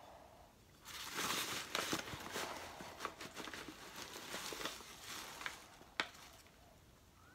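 Heavy paper bag crinkling and rustling as a hand with a metal scoop digs into the red iron oxide powder inside it, for about four and a half seconds, then a single sharp tap about six seconds in.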